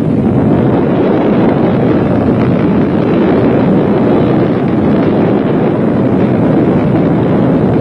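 Steady, loud wind buffeting the microphone, mixed with the running noise of off-road racing motorcycles.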